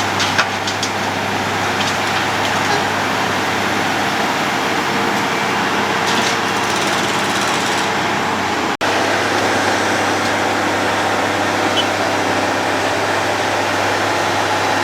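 Road planer (cold milling machine) running steadily, its diesel engine drone under a continuous grinding noise from the milling drum, with a momentary dropout about nine seconds in.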